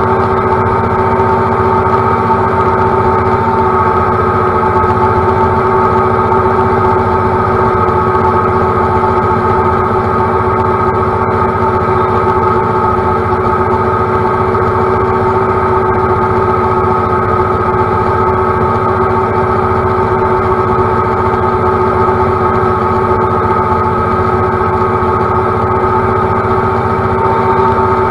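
Compact utility tractor's diesel engine running steadily at working speed while mowing grass, a constant pitched drone with no change in speed.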